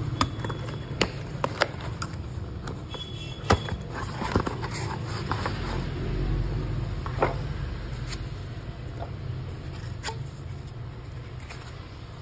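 Cardboard box being opened and handled by hand as a new copier fuser roller is taken out: scattered taps, knocks and scrapes of cardboard, the loudest about three and a half seconds in. A steady low hum runs underneath.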